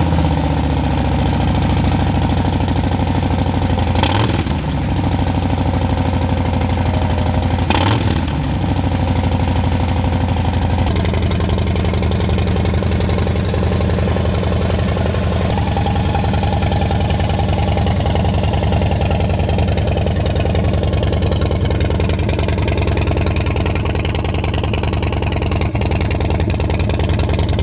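Harley-Davidson Milwaukee-Eight 117 V-twin running through a newly fitted SP Concepts LaneSplitter 2-into-1 exhaust just after a cold start. It idles steadily, is blipped twice about four and eight seconds in, and its idle note shifts a little after about eleven seconds as it settles.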